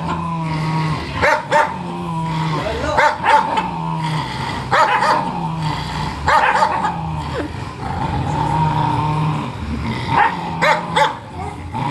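Dogs growling at each other: low rumbling growls in stretches of about a second, broken every second or two by short sharp barks.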